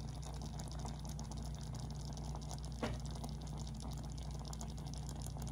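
A quiet, steady low hum with a faint hiss, and one soft click about three seconds in.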